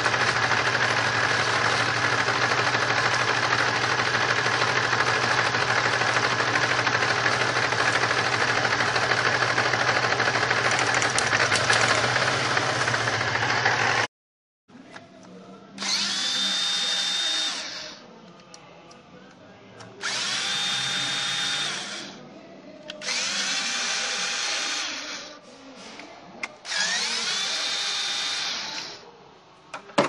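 Supercharged 3.8-litre V6 of a 1999 Pontiac Grand Prix idling with a misfire, which the owner puts down to a bad ignition coil for cylinders 1 and 4. After about 14 s it cuts off abruptly, and four short electric whines follow, about 2 s each, each rising in pitch and then holding steady.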